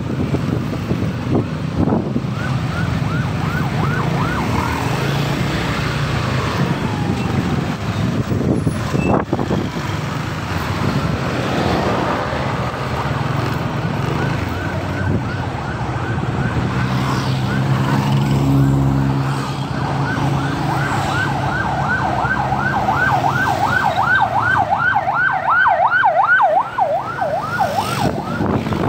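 A siren in yelp mode, its pitch sweeping up and down about four times a second, comes and goes and is loudest near the end. Under it runs the steady hum of the scooter's engine and the surrounding traffic.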